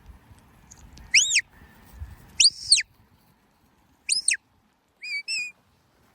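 Shepherd's whistle commands to a working sheepdog: three whistles that each rise and fall in pitch, then two short level blasts in quick succession near the end.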